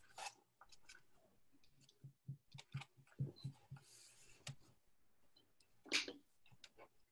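Faint soft taps of a paint sponge dabbing acrylic paint through a plastic stencil onto paper, including a quick run of about four dabs a second. A louder handling sound near the end, from the stencil or paper being moved.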